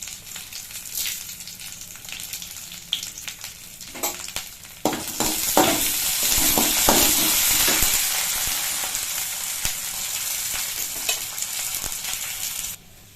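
Chana dal, urad dal and dried red chillies sizzling in hot oil in a pan, stirred with a spoon that knocks and scrapes against the pan. The sizzle grows much louder about five seconds in and stops suddenly near the end.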